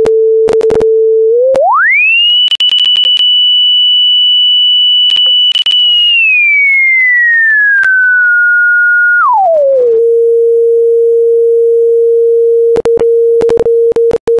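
Pure sine tone from a software granular-synthesis generator, its pitch swept by dragging the sine-frequency slider. It starts as a steady low tone and glides quickly up to a high whistle about two seconds in, then holds. It slides gradually down through the middle, drops back to the low tone about ten seconds in and holds there, with scattered clicks and crackles.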